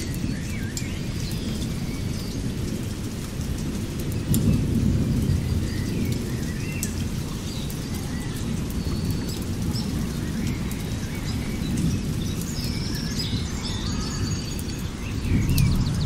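Outdoor nature ambience: small birds chirping and trilling over a continuous low rumble that swells about four seconds in and again near the end.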